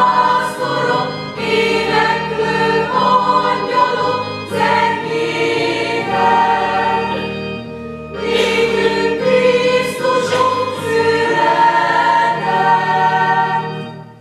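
Small mixed choir of men's and women's voices singing a sacred song in parts, in sustained phrases with short breaths between them; the singing fades out at the very end.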